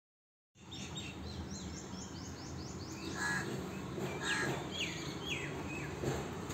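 Small birds chirping: quick runs of short, high, falling chirps, with a few louder calls from about three seconds in. The sound starts about half a second in, after silence.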